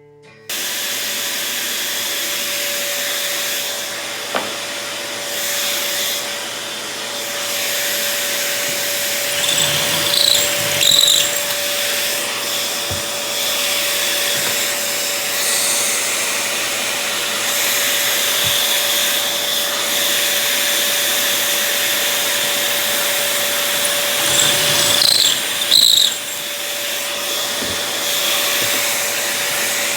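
A workshop tool's electric motor running steadily with a constant whine, starting abruptly just after the beginning. It swells louder twice, around ten and twenty-five seconds in.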